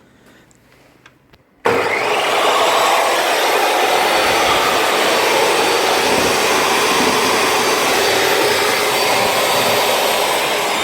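DeWalt table saw's brushed motor switched on: it comes up to speed about two seconds in and runs steadily at full speed with a high whine. It now starts, its fault cured by a new lead and new spade connectors after the old ones had burnt.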